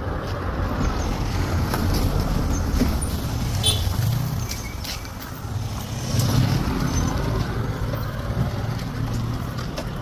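Engines of motor vehicles passing on a road, a motorcycle among them: a steady low rumble that swells about two seconds in and again at about six seconds as the motorcycle goes by.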